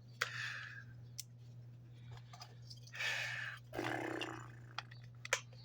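Small clicks and rustling of handling, with a few sharp ticks and two short hissy scuffs, over a steady low hum.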